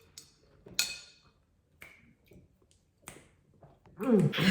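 Scattered light clicks and taps of someone eating, the clearest a sharp tick about a second in, followed near the end by a short voiced sound falling in pitch.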